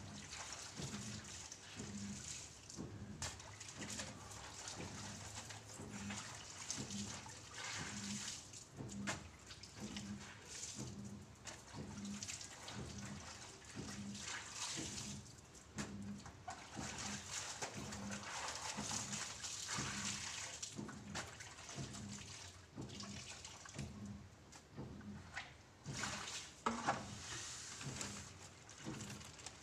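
Clothes being washed by hand in a basin: water splashing and sloshing in uneven surges as the wet laundry is rubbed and wrung, with a faint low pulse about once a second. A short sharp sound comes near the end.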